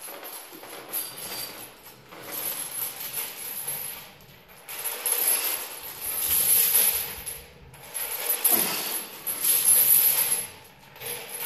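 Lifting chains hung from a plate-loaded safety squat bar clinking and rattling as the bar goes down and up through squat reps, in waves a few seconds apart.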